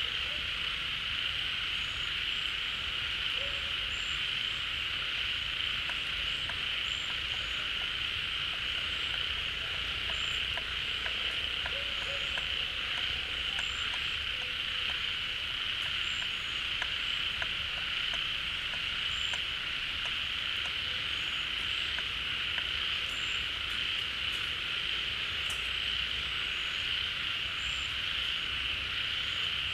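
A dense chorus of many frogs calling together without a break, the calls merging into one steady sound, with short high chirps recurring about every second or two over it.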